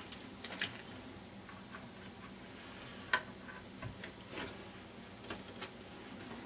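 Faint scattered clicks and rustles of a floppy drive ribbon cable and its plastic connector being handled and fitted, with one sharper click about three seconds in.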